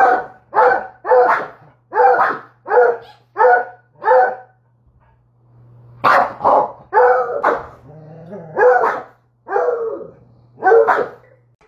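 A Treeing Walker Coonhound barking repeatedly. There is a run of about seven evenly spaced barks, about three every two seconds, then a pause of a second or so, then a second run of barks.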